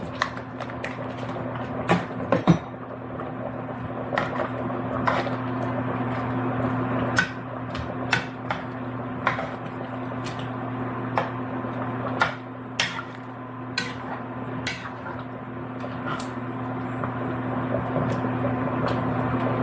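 Utensil knocking and scraping against a pot as gnocchi is added to chicken stew and stirred in: irregular sharp clinks about once a second, over a steady low hum.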